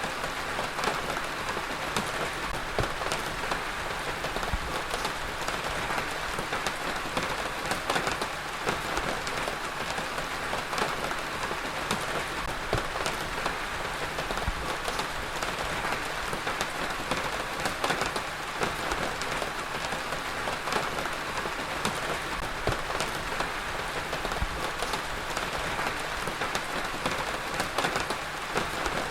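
Heavy rain falling steadily, a dense hiss with the patter of many individual drops hitting a surface.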